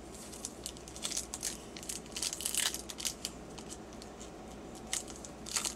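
Foil Pokémon booster-pack wrapper crinkling and tearing as it is opened by hand: irregular short crackles, busiest between one and three seconds in, with another cluster near the end.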